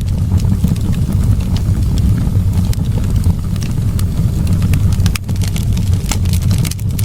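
Wood fire burning in a fireplace: a steady low roar of flames with frequent sharp crackles and pops.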